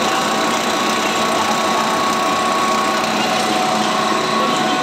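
Fish feed production line machinery running steadily: an even mechanical noise with a few steady whining tones held throughout, while freshly made pellets discharge from the outlet.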